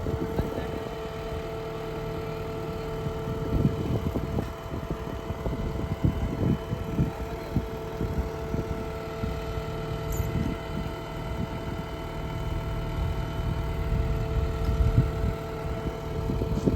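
JCB 3DX backhoe loader's diesel engine running steadily with a constant whine, over uneven low rumbling and thumps.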